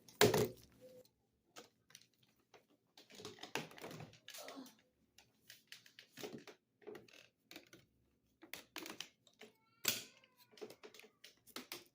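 Irregular clicks, taps and knocks of a Shark Navigator upright vacuum's plastic parts being handled and fitted back together, with louder knocks at the start and about ten seconds in.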